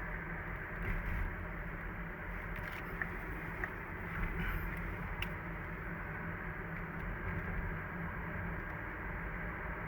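Mazda CX-30 1.8-litre diesel on the move: steady low engine and road noise, with a faint thin whistle-like tone above it. This whistle from the engine bay persists at speed, even off the throttle, and has survived replacement of the turbocharger, exhaust parts and the engine itself.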